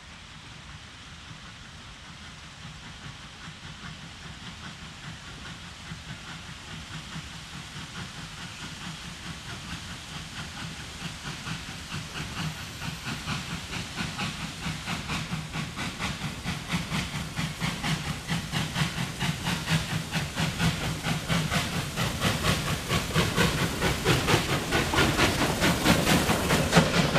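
Two 2-8-0 Consolidation steam locomotives double-heading a train: the hiss of their working turns into fast, regular exhaust beats that grow steadily louder as they approach and pass.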